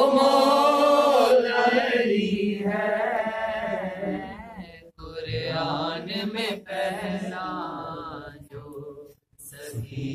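Unaccompanied male chanting of an Urdu devotional qasida, long wavering held notes without clear words, breaking off briefly about five seconds in and again near nine seconds.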